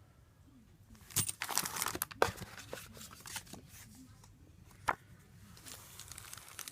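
Packaging being handled and unwrapped: a crinkling, tearing rustle with a few sharp clicks. It starts about a second in.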